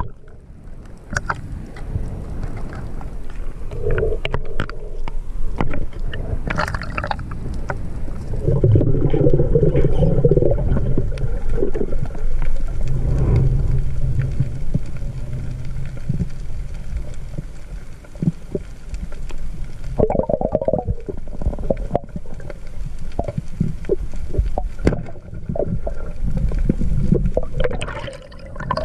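Sea water rumbling and gurgling around the camera, with scattered sharp clicks throughout and louder swirls of water about 4, 9 to 10, and 20 seconds in.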